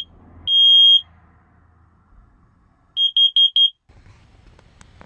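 Ceiling-mounted smoke alarm going off with a shrill, steady beep. There is one long beep about half a second in, then a quick run of four short beeps about three seconds in.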